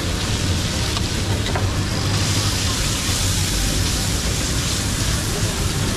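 Paneer cubes and tikka masala sizzling on a hot iron tawa as they are spread and stirred with a spatula; the sizzle grows louder and brighter about two seconds in, over a steady low hum.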